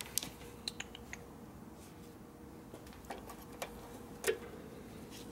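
A few scattered light clicks and taps, as wiring and small parts on the motorcycle are handled, over a faint steady hum.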